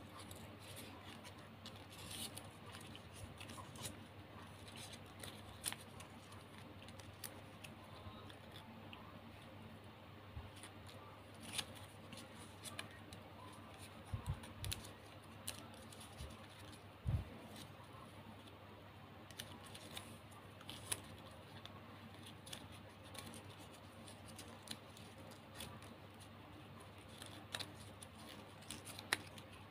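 Plastic gift ribbon crinkling and rustling as it is folded and woven by hand, in short irregular crackles, over a faint steady hum.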